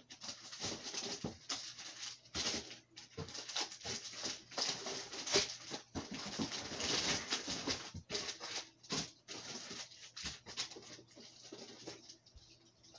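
Plastic and cardboard packaging rustling and crinkling with many small clicks as items are dug out of a shipping box; it dies away about twelve seconds in.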